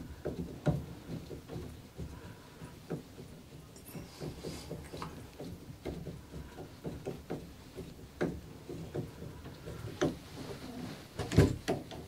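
Irregular small metal clicks and taps of a Moen cartridge puller and wrench being worked on a Moen 1225 shower cartridge in its valve body, with a louder pair of knocks near the end.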